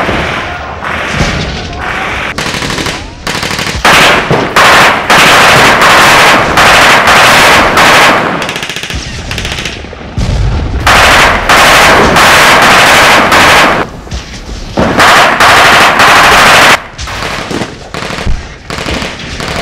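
Machine guns firing blanks in long, very loud bursts about four, eleven and fifteen seconds in, with scattered single rifle shots between and after them.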